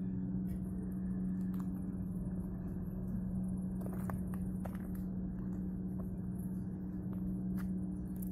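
A steady low machine hum, even in pitch throughout, with scattered faint clicks of footsteps.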